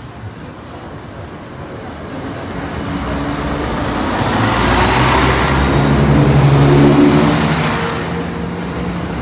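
Class 170 Turbostar diesel multiple unit passing close at low speed: underfloor diesel engines humming and wheels running over the rails. It builds to its loudest about seven seconds in, with a thin high squeal near the peak, then eases as the train moves away.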